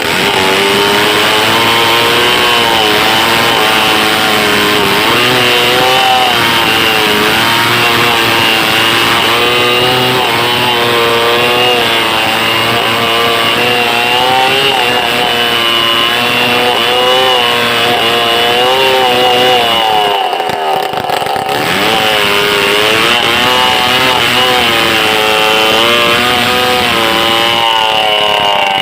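Stihl 070 two-stroke chainsaw running hard, cutting a large log, its engine note wavering up and down as it works through the wood. About two-thirds through, the low end of its sound drops out for a moment before it carries on.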